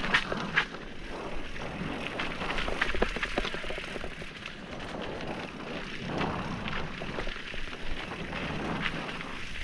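Mountain bike riding down a dry, rocky dirt trail: tyres rolling and crunching over loose dirt and stones, with frequent small knocks and rattles from the bike as it bounces over rocks.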